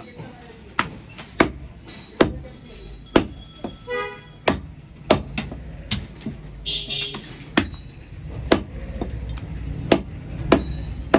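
Steel meat cleaver chopping through goat ribs on a wooden chopping block: a steady series of sharp chops, roughly one a second.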